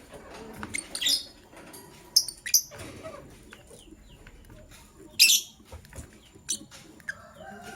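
Lovebirds giving short, high-pitched chirps: about half a dozen separate calls, the loudest about five seconds in.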